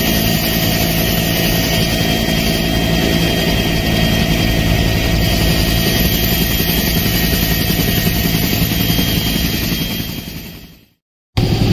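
Helicopter engine and rotor noise heard from inside the cabin with the door open: a steady, loud drone with a steady high whine. It fades out about ten seconds in, goes briefly silent, then a louder, pulsing engine drone starts just before the end.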